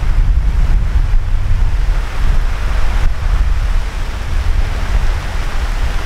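Storm wind gusting hard and buffeting the microphone with a deep rumble, over a steady hiss of heavy rain that grows louder about two seconds in.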